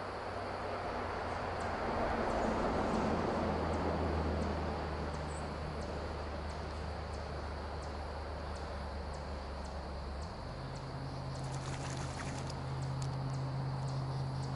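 Steady low engine hum of a passing vehicle, swelling a few seconds in and shifting to a different pitch about ten seconds in, with faint regular ticking above it.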